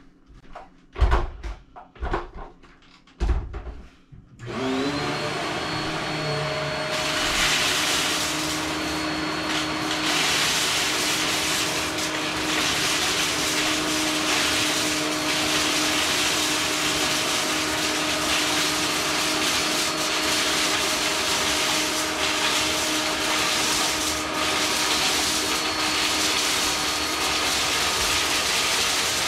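An upright vacuum cleaner is knocked and set down a few times, then switched on about four seconds in: the motor spins up and settles into a loud, steady run with a high whine. It runs over scattered dark debris on a shag carpet, picking it up with a crunchy rattle.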